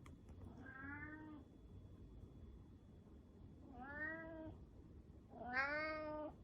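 A brown tabby cat meowing three times, a few seconds apart, the last meow the loudest and longest.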